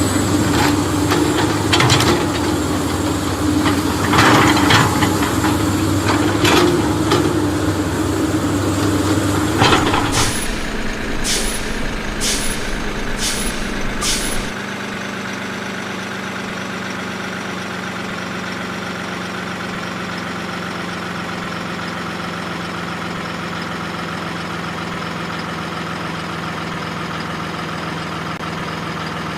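Heavy truck engine running, with clanks and knocks over it, then a run of five short hisses about a second apart, after which the engine settles into a steady idle.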